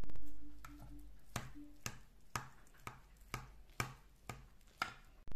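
Kitchen knife cutting through a baked vegetable gratin in a glass baking dish, the blade knocking on the glass in a run of sharp clicks about twice a second. A brief louder rush comes at the start.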